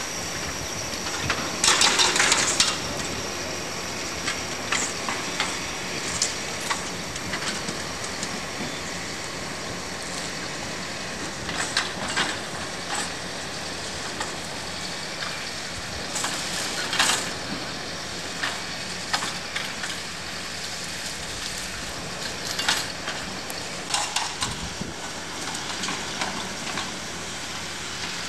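Demolition-site machinery running steadily, with scattered clanks and knocks of rubble and metal. A louder burst of noise comes about two seconds in and lasts about a second.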